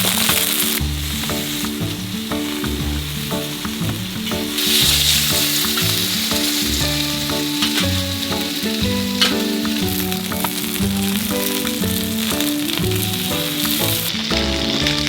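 Instrumental background music with a stepping bass line, over a continuous sizzle like food frying in a pan. The sizzle drops away and returns abruptly a few times.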